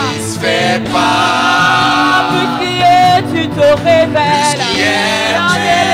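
Worship music: sung melody with long held, wavering notes over instrumental accompaniment.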